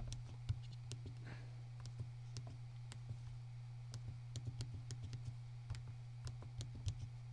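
Calculator keys being pressed: faint, irregular clicks, a couple a second, over a steady low hum.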